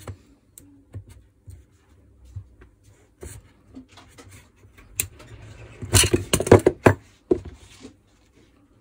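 Clicks, knocks and scraping as the armature of a Makita HR2450 rotary hammer is worked and pried out of its housing. A burst of louder rattling clicks comes about six to seven seconds in.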